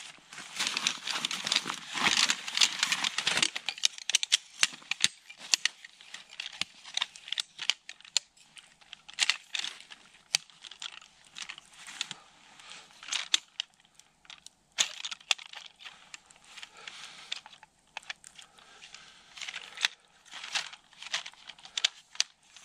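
Camping gear being handled: irregular rustling and crinkling with many scattered sharp clicks, busiest in the first few seconds, then in short bursts.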